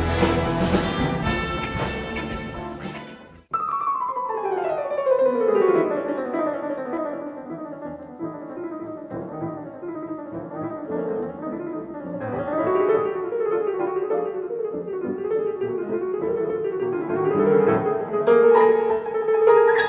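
Background music: a loud, dense piece cuts off suddenly about three seconds in, and a fast piano piece follows, opening with a long falling run and going on in rapid rippling figures.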